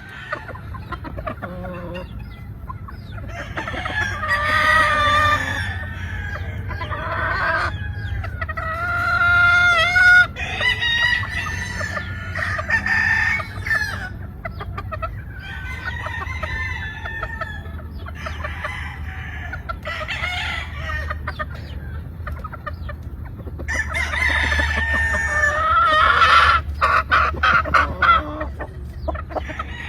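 Roosters crowing again and again, several long calls in turn, with hens clucking between them. A low steady rumble runs underneath.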